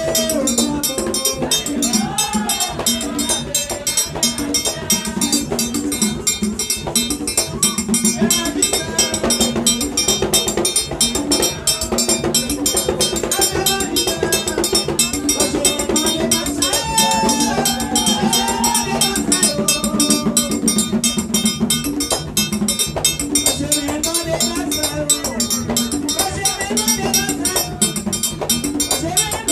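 Live Haitian Vodou ceremonial drumming on hand drums, with a cowbell-like metal bell keeping a steady pattern and voices singing over a dense, rapid beat.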